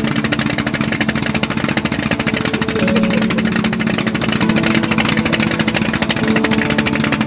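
A boat's engine running steadily with a rapid, even pulse.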